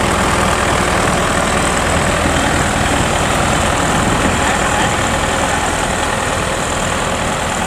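Diesel engine of a 102-horsepower rice combine harvester idling steadily during refuelling.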